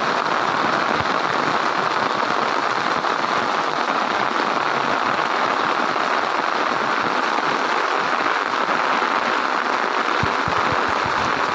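Steady, even rush of fast-flowing floodwater pouring across a railway track.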